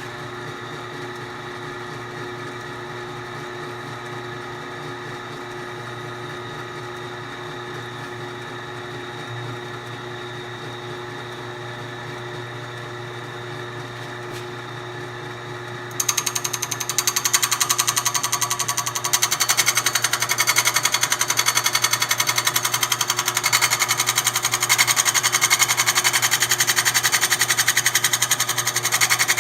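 Milling machine running with a grinder attachment in the spindle, a steady hum. About sixteen seconds in the grinder bites on the broken exhaust bolt and a much louder, steady grinding takes over.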